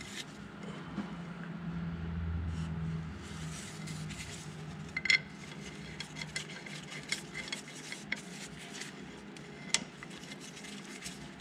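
Scattered light metallic clicks and clinks as steel flywheel bolts are threaded by hand into the crankshaft flange, over a faint low hum.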